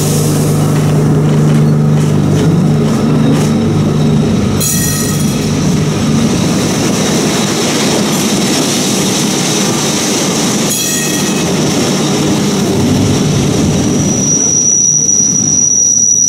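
Lisbon tram 28, a classic two-axle electric tram, running on its rails with a continuous rumble and a low steady hum that fades after about four seconds. Two brief high-pitched sounds come about six seconds apart, and near the end the wheels squeal with one high steady pitch that grows louder.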